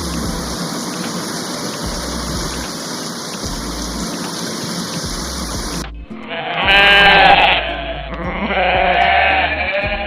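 Sheep bleating: two long, quavering calls in the last four seconds, after a sharp cut from a steady hiss-like noise. A low repeating music bass line runs underneath.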